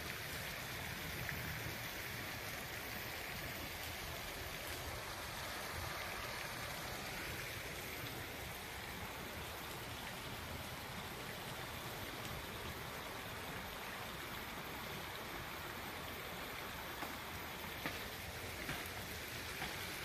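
A river flowing: a steady, even rush of water.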